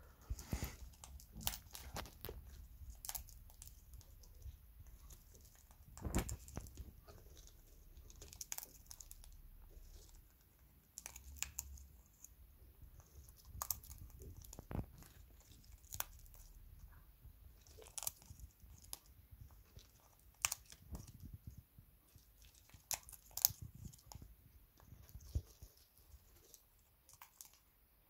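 African grey parrot cracking sunflower seeds and other seed mix with its beak: irregular sharp cracks and crunches.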